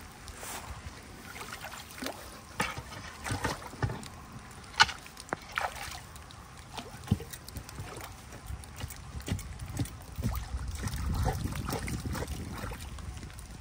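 Hands and a pole sloshing and splashing in shallow floodwater while debris is cleared from a clogged culvert inlet, with irregular small splashes and a heavier stretch of sloshing about ten seconds in.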